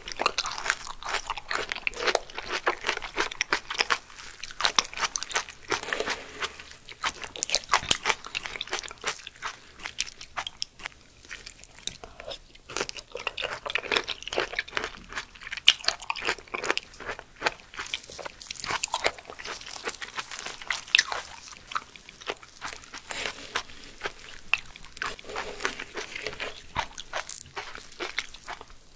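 Close-miked chewing of slippery peeled aloe vera gel eaten from a spoon: wet, sticky mouth sounds with many small sharp clicks, irregular throughout.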